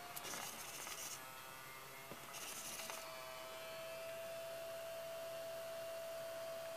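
A steady high-pitched electrical whine from powered RC servo gear on a servo tester. It drops out for about three seconds, during which two short bursts of rustling noise come through, then it comes back.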